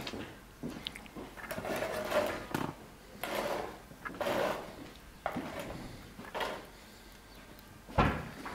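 A metal spoon scooping cooked rice out of an aluminium pot and onto an enamel plate: a scrape and soft rustle every second or so, with a few clinks and one sharp clink near the end.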